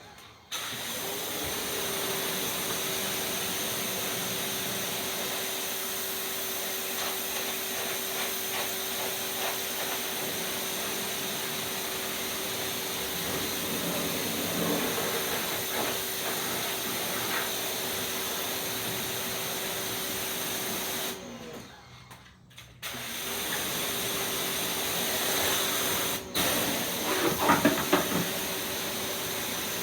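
Pressure washer spraying a steady hissing jet with a constant whine underneath. The spray stops twice, about two seconds the second time, then restarts. Louder splashing bursts come near the end.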